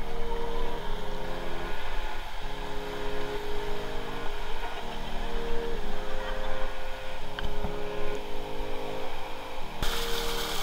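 Background music of sustained chords changing every second or so. Near the end, the rushing splash of a pool waterfall cascade cuts in suddenly.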